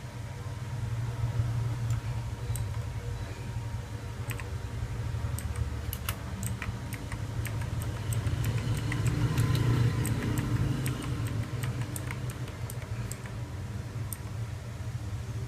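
Keys of a Fuhlen SM690 mechanical keyboard with clicky Blue switches being pressed, single sharp clicks at an irregular pace, thickest in the middle stretch. A steady low hum runs under them.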